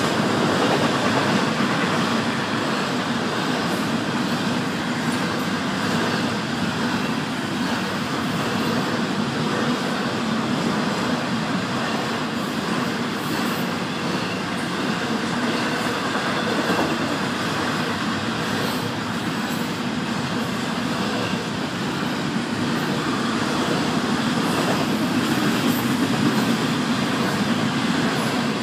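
Florida East Coast Railway freight train's autorack and intermodal cars rolling steadily past: continuous noise of steel wheels on rail.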